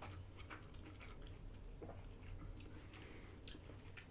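Faint chewing of food: soft, scattered mouth clicks and smacks, over a low steady hum.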